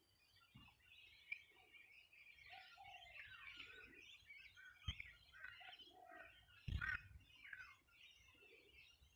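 Many small birds chirping and twittering faintly, their calls overlapping in a continuous chorus, with two low thumps about five and seven seconds in.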